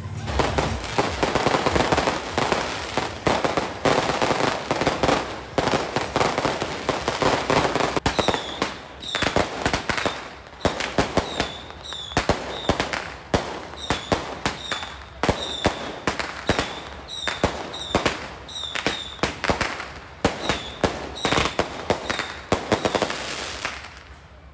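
Firecrackers and fireworks going off. For the first eight seconds or so a dense, continuous crackle, then a long run of separate sharp bangs, each with a short high whistle, until just before the end.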